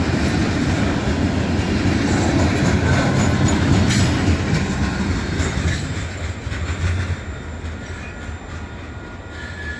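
Covered hopper cars of a freight train rumbling and clattering over a street grade crossing as the end of the train goes by. The rumble fades after about seven seconds, and a thin, steady high wheel squeal comes in near the end.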